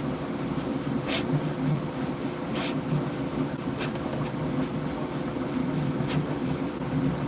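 Bambu Lab H2C 3D printer running mid-print: a steady buzzing hum of its motors and fans, with a few short hissy swishes at irregular intervals.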